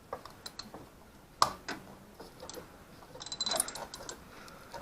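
Hand socket ratchet clicking in short runs, with tool clinks and a louder metal knock about a second and a half in.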